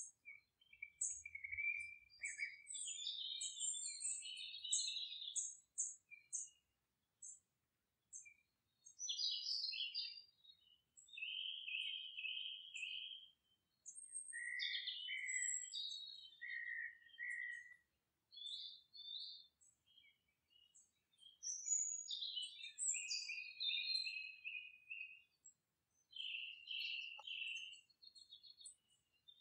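Birds chirping and calling, many short high notes coming in runs with brief pauses between.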